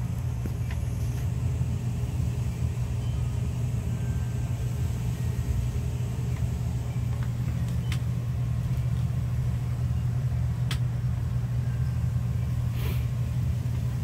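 Blower fan of an England's Stove Works wood furnace running with a steady low hum, with a few faint clicks over it.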